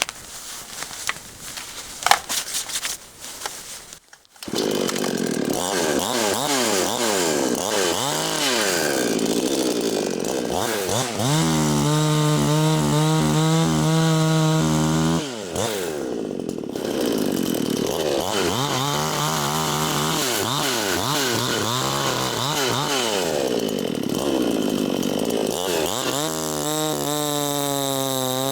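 A few knocks, then about four seconds in a chainsaw starts up and runs while cutting wood into firewood. Its engine pitch rises and falls again and again, holding steady for a few seconds twice.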